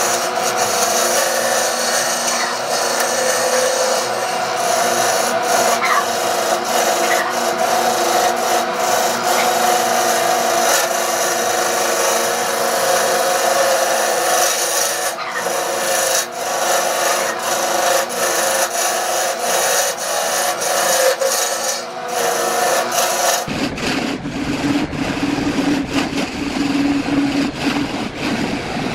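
Wood lathe running while a tool works the spinning wood: a continuous scraping hiss over a steady hum. A little before the end the sound changes abruptly to a duller, deeper noise.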